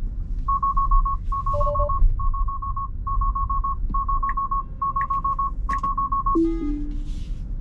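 Tesla's in-cabin alert chime: rapid bursts of high beeps, seven groups in a row, over low road rumble. Near the end comes a lower two-note falling chime, like Autopilot disengaging.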